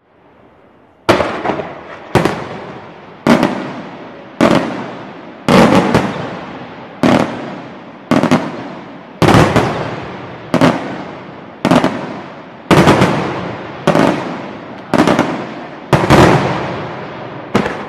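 Italian multi-break aerial firework shell going off in a chain of sharp, loud bangs about one a second, each trailing off in an echoing rumble. The bangs start about a second in.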